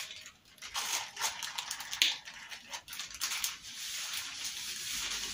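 Plastic bag worn as a glove crinkling and scratching as a hand rubs hair relaxer cream through short hair, in quick irregular strokes with a sharper rustle about two seconds in.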